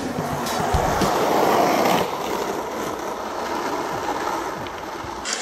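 Skateboard wheels rolling over an asphalt road: a steady rolling noise that swells a little about a second in and cuts off just before the end.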